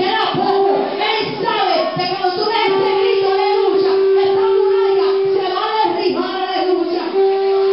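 Many voices of a congregation at once, loud and overlapping, speaking and singing together, with one long held note sounding through the middle and again near the end.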